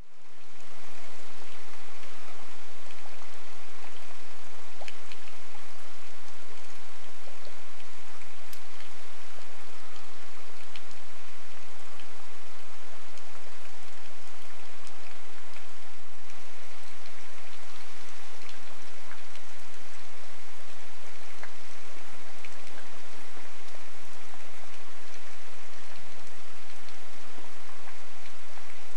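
Steady rain falling, with scattered individual drops ticking; it fades in over the first second.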